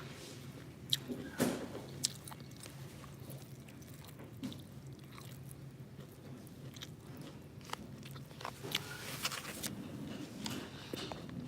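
Close-up eating sounds of a person biting and chewing fried eggs, with scattered wet mouth clicks and a few louder snaps over a faint low steady hum.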